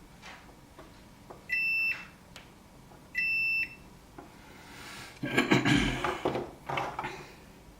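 Two short, steady electronic beeps from a multimeter's continuity tester, about a second and a half apart, the sign of the probes making contact. Then a couple of seconds of scraping and rustling handling noise.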